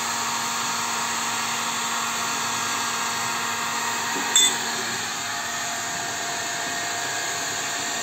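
Handheld electric heat gun running steadily, its fan blowing with a constant hum, heating a seized sink-mixer fixing nut to loosen it. A brief click about four seconds in.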